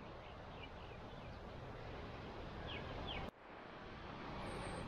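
Faint outdoor ambience, a steady soft hiss, with a few short high bird chirps about half a second in and again near three seconds.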